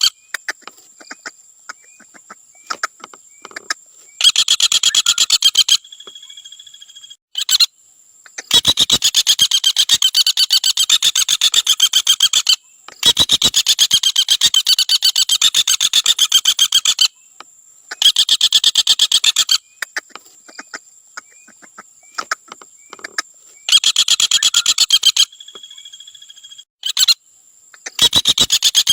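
Common flameback woodpecker (Dinopium javanense) giving its rapid rattling trill, the 'trotol' call, in repeated bouts. Some bouts last a second or two, others about four seconds, with short pauses between.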